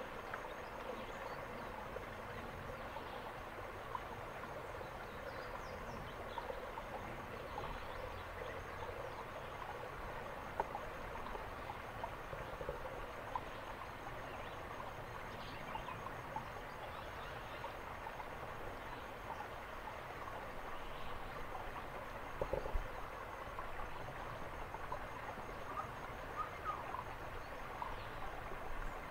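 Steady forest background hiss with a faint, fast-pulsing high insect trill and scattered small ticks.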